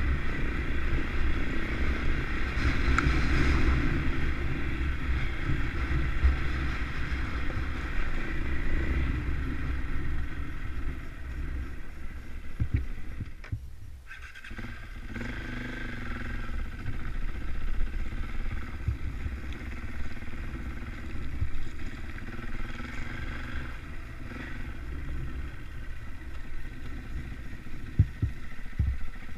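KTM trail bike engine running as the bike rides along a green lane. The sound drops away briefly about halfway through, then runs on, with a few sharp knocks near the end as the bike crosses rocky ground.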